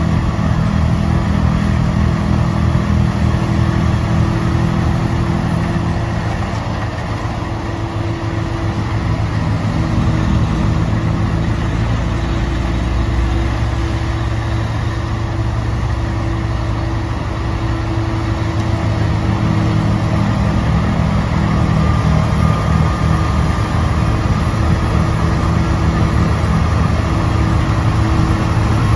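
Diesel engine of a CAT 950M wheel loader running under load while its Larue snowblower attachment throws snow; a steady, heavy engine drone that eases off briefly twice and builds up again over the last third.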